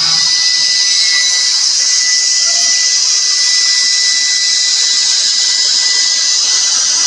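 Sliding-table panel saw running and cutting along a wooden plank: a steady, loud high-pitched whine over a hiss of the blade in the wood.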